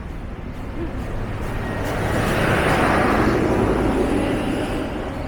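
A road vehicle passing close by on a busy main road: its noise swells to a peak midway and then fades, over a steady low rumble of traffic.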